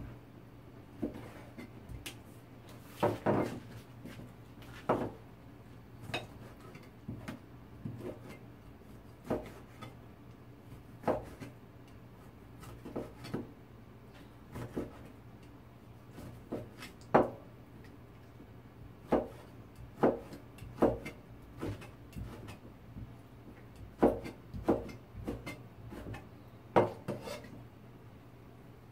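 Chinese cleaver slicing rehydrated squid on a cutting board: irregular sharp knocks of the blade striking the board, roughly one a second, sometimes two in quick succession.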